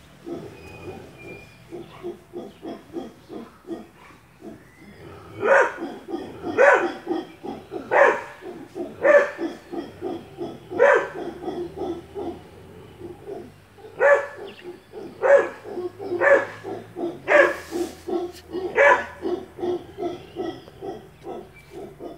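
Howler monkeys calling in the trees as a rapid run of deep, pulsing grunts. From about five seconds in, a dog barks back at them roughly once a second, some ten loud barks over the grunting.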